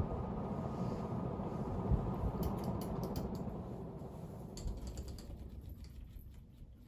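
Hunter R-52 ceiling fan's motor hum and blade whir fading steadily away, as the fan runs down, with two runs of small mechanical clicks and creaks partway through.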